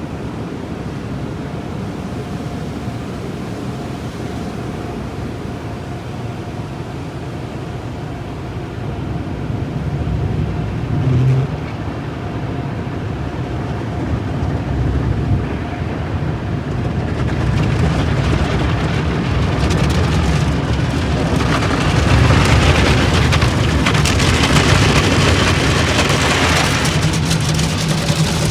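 Automatic car wash machinery running: a steady low rumble that builds partway through, joined about halfway by a loud rushing hiss of water spray.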